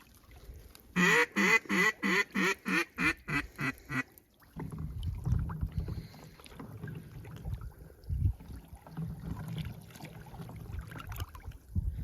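A mallard-hen style decrescendo call: about a dozen quick quacks in an even series that get quieter toward the end. After that, low wind rumble on the microphone with a few thumps.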